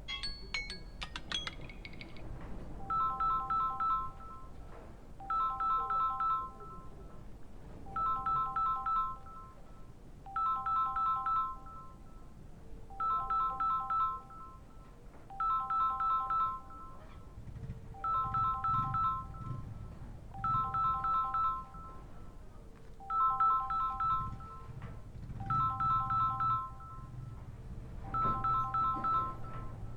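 Samsung A12 smartphone sounding a repeating electronic ring tone: a burst of quick three-pitched beeps about every two and a half seconds, starting a few seconds in.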